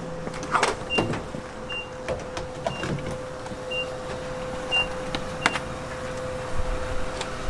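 Fuel dispenser at a gas station: a steady hum, with short high beeps every second or so. Several sharp clicks and clunks in the first few seconds as the nozzle is handled and pushed into the pickup's filler neck.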